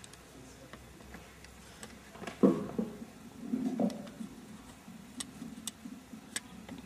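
Quiet room with scattered sharp clicks from a laptop being operated, a run of three close together near the end. A dull thump about a third of the way in is the loudest sound.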